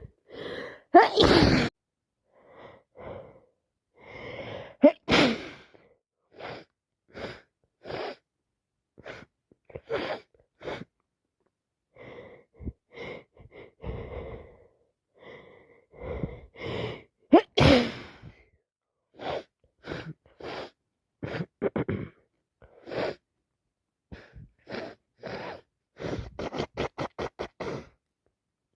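A woman with a heavy head cold sneezing hard three times, about a second in, about five seconds in and about seventeen seconds in, with short sniffs and gasping breaths between the sneezes and a quick run of sniffs near the end.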